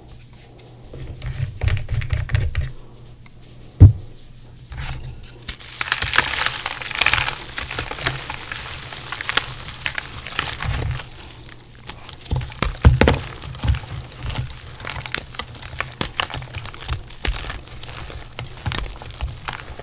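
Soaked gym chalk reforms squished and crushed between wet hands: soft crumbling and crackling, with a sharp knock about four seconds in.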